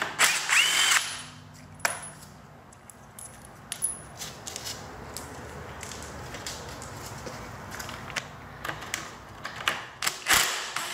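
DeWalt 20V cordless impact driver with a 9/16 socket spinning out the bolts that hold a pool pump's seal plate. There is a burst with a rising motor whine about a second long at the start and another near the end, with scattered clicks and clinks of metal in between.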